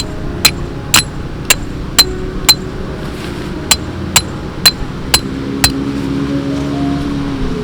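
Hammer driving a metal tent stake: ten sharp blows about two a second, five, a short pause, then five more, each with a brief metallic ring.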